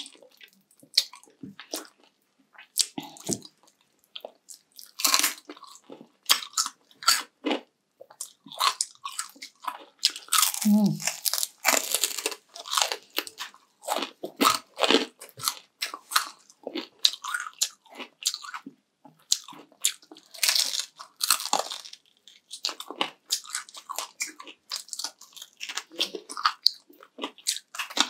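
Crunchy food being bitten and chewed close to the microphone: irregular loud crunches and crackles with wet chewing between them.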